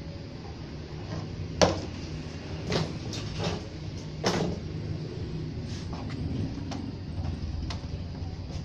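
Sharp clicks and knocks of a TV power circuit board and soldering tools being handled, the loudest about one and a half seconds in and smaller ones scattered after, over a steady low hum.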